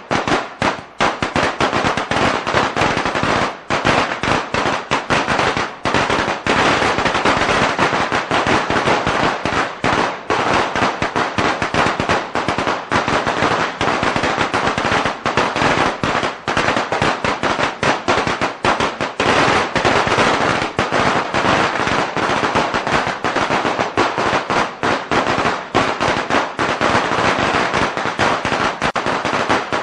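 A string of Chinese firecrackers (biānpào) going off in a rapid, unbroken crackle of loud bangs.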